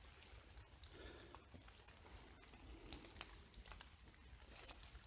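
Faint rustling and crinkling with scattered soft clicks, close to near silence.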